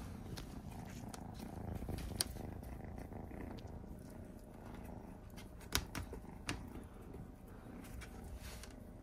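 A domestic cat purring very loudly while being stroked: a steady, deep rumble likened to thunder. A few short clicks stand out, about two seconds in and twice around six seconds in.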